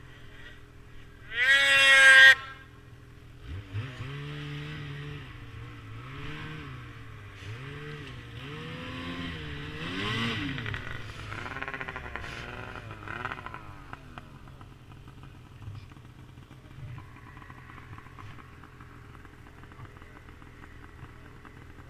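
Snowmobile engines: one whines loudly and briefly about two seconds in, rising then falling in pitch, then an engine revs up and down repeatedly through the middle before settling to a quieter, steady run.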